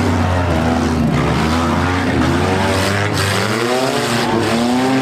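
Several compact demolition-derby cars' engines running and revving at once, their pitches rising and falling over each other, with a short bang about three seconds in.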